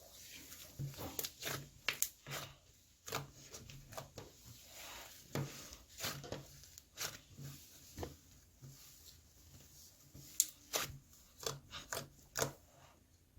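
A run of irregular short clicks and taps, several a second, with a few sharper ones among them.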